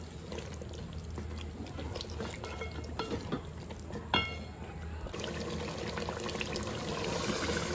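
Chicken korma bubbling and frying in an aluminium pot as the masala is stirred with a wooden spatula, with light scrapes and knocks of the spatula against the pot. There is one sharp ringing clink about four seconds in, and the bubbling grows a little louder after about five seconds.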